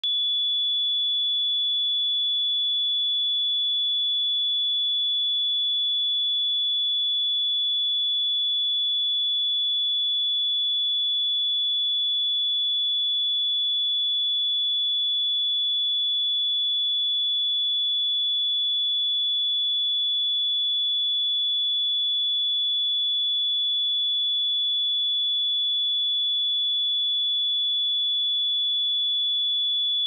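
A pure 3434 Hz sine-wave test tone, one steady high-pitched pitch held at constant level, used to check speakers or headphones.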